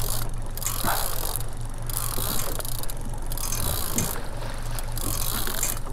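Boat's outboard motor ticking over in gear at slow cruising speed, a steady low hum, with water and wind hiss rising and falling over it.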